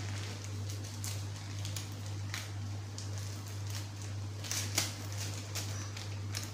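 Steady low hum with scattered light clicks and taps, the sharpest a little under five seconds in.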